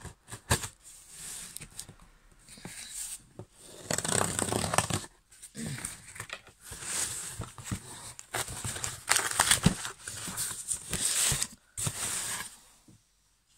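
Cardboard shipping box being torn open by hand: irregular bursts of ripping and scraping cardboard. The sound stops shortly before the end.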